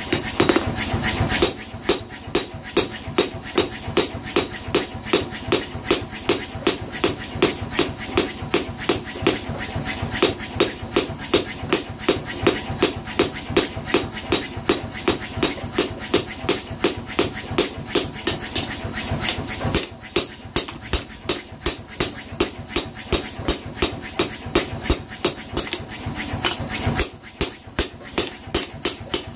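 Hand hammer striking a steel cleaver blade held on a round steel anvil block while it is hand-forged. The blows come steadily, about three a second, with a few short breaks.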